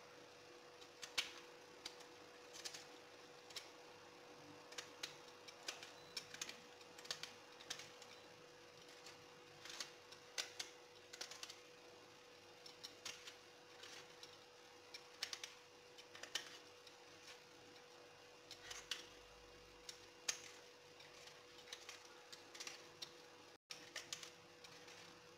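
Vegetable peeler shaving the tough outer layer off an artichoke's base and stem: faint, short scraping clicks at an irregular pace, over a steady faint hum.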